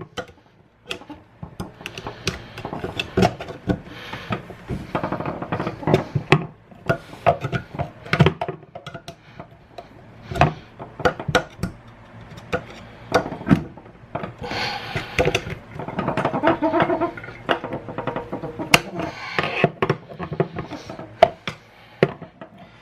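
Flathead screwdriver clinking and scraping inside a garbage disposal, prying at a teaspoon scoop jammed against the blades. It comes as irregular sharp knocks with rougher scraping stretches in between.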